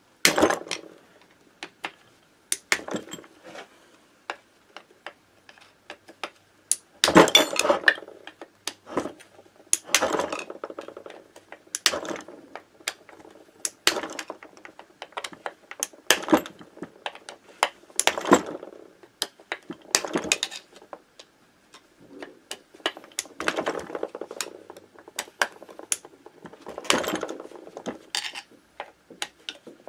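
A hand tool clinking and clicking on a Minarelli AM6 engine's crankcase as its case screws are loosened one after another. Short metallic clinks and knocks come in bursts about every two seconds.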